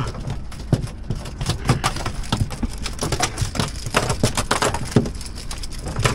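Spinning reel being cranked while a hooked bluefish is fought on a bent rod: irregular clicks, a few a second, over a steady low rumble.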